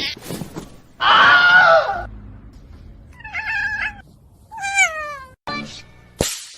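A cat meowing: three separate calls, the last one falling in pitch, followed by a couple of short clicks near the end.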